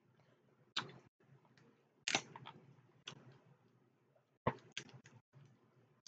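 Scattered sharp cracks and clicks of seafood being shelled and eaten by hand, about six in all, the loudest about two seconds in and again about four and a half seconds in.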